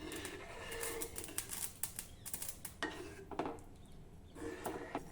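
Faint, irregular clicks and scrapes from a kadhai as bajra batter is slowly poured into boiling spiced water.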